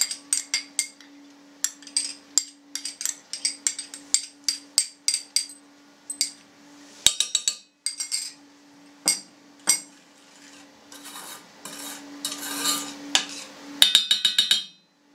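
A metal teaspoon clinks repeatedly against a small glass bowl as swollen gelatin is scraped out into hot sugar syrup. Later the spoon stirs and scrapes in a stainless steel saucepan, with a quick run of clinks near the end.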